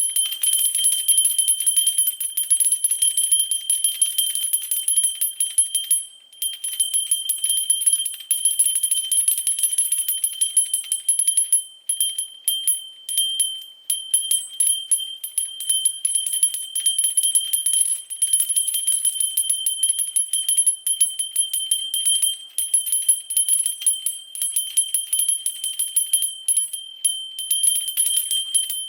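Small silver-coloured bell, 4 cm across, shaken continuously: rapid clapper strikes over a steady high ringing tone, with brief pauses about six and twelve seconds in.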